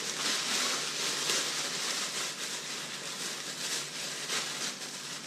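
A steady, even hiss that runs without a break.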